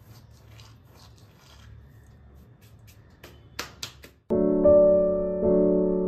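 Palms rubbing together to crush ajwain (carom seeds) over a bowl of flour, a soft rhythmic rustle. About three and a half seconds in come a few sharp clicks, and then piano background music starts, louder than everything before it.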